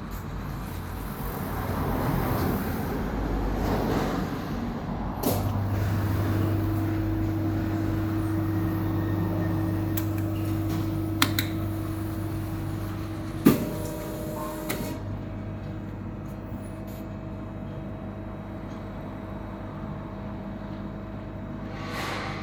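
Four-station rotary heat press machine running: a motor switches on with a click about five seconds in and hums steadily after that, with a few sharp mechanical clacks in the middle, the loudest about halfway through.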